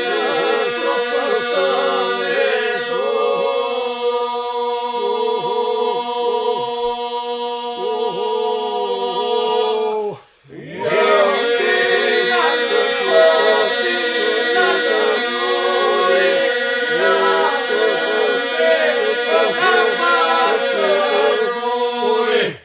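Male folk group singing Lab iso-polyphony a cappella: the group holds a steady drone while solo voices wind above it. The singing breaks off for a moment about ten seconds in, then carries on.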